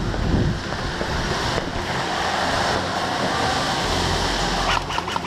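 Steady rushing noise from a player moving fast with an action camera, the wearer's own movement and gear rubbing on the microphone. Near the end a quick, even run of clicks starts, about six or seven a second.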